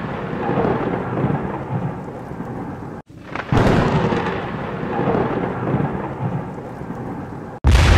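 Rumbling, thunder-like noise. It drops out for a moment about three seconds in and starts again, then cuts off just before the end, where a louder crash begins.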